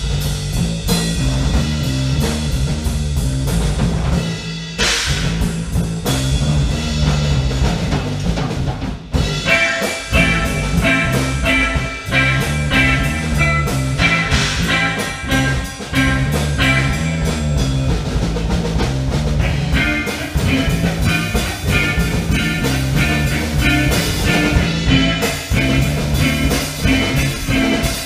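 Live band playing an instrumental rock jam on drum kit, bass and guitar. A repeating bass line sits under the drums, and about ten seconds in a guitar line of repeated higher notes comes in over it.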